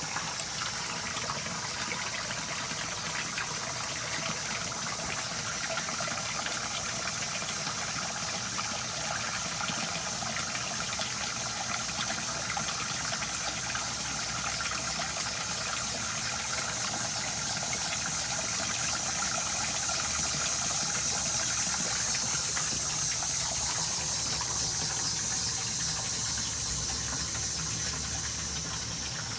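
Steady splashing and trickling of running water in a fish pond.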